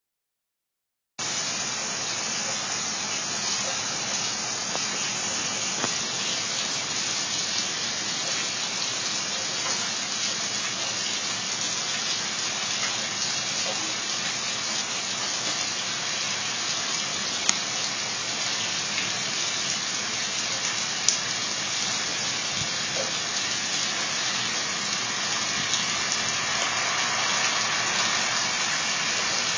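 Heavy downpour of rain and hail pelting the driveway and street, a dense, steady hiss that starts about a second in, with a couple of sharper cracks of hailstones striking close by.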